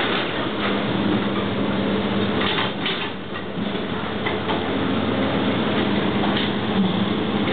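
Excavator engine running steadily while its steel bucket scrapes and knocks through broken concrete rubble and drags out steel reinforcing wire mesh, with a few sharp scrapes standing out.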